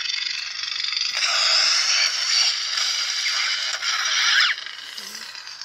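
Lightsaber sound font from a Proffie 2.2 board playing through the hilt's 28 mm speaker: the crackling hum of the unstable blade. It dips briefly about a second in and stops about four and a half seconds in.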